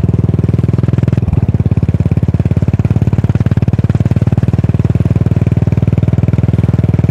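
Yamaha SR400's air-cooled single-cylinder engine running through a Goods tapered-cone slip-on muffler: a steady, even beat of exhaust pulses at constant engine speed, with a slight change in tone about a second in.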